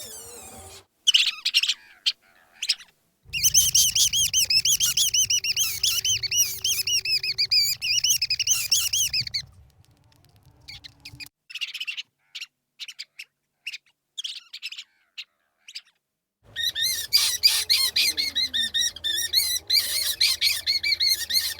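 Rat squeaking: rapid runs of high, wavering squeaks about three seconds in and again near the end, with scattered short squeaks and clicks in between.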